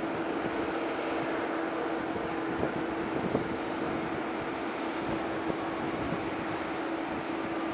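Embraer E195's GE CF34-10E turbofan engines running at idle: a constant drone with a steady low hum and a faint high whine.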